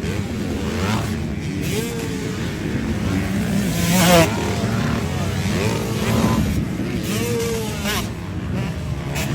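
Motocross motorcycle engine revving up and falling back several times, the loudest rev about four seconds in.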